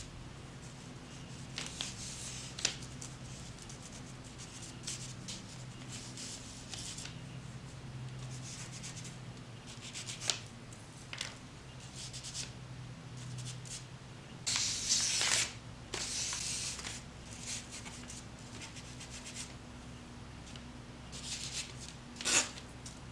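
Homemade wood charcoal scratching and rubbing on brown paper in short, irregular strokes. There is a longer, louder scratchy stretch about two-thirds of the way through and a sharp stroke near the end.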